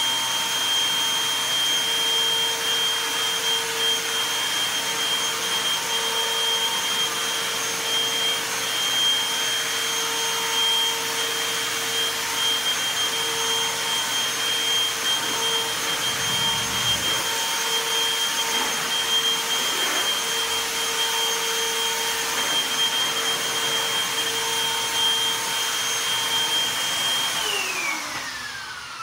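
Upright vacuum cleaner running loud and steady with a constant whine. Near the end it is switched off and its motor pitch falls as it spins down.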